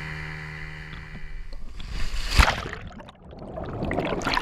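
A steady hum stops about a second and a half in, then a loud splash as a scuba diver drops from an inflatable boat into the water, followed by the rushing and bubbling of water around the submerged diver, building again near the end.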